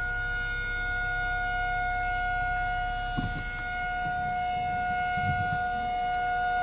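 Federal Signal 2001 electromechanical tornado siren holding a steady single tone at full pitch during a siren test.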